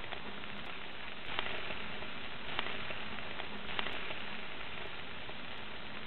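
Bell peppers sizzling on a gas grill grate: a steady hiss, with three sharp clicks about a second apart in the middle.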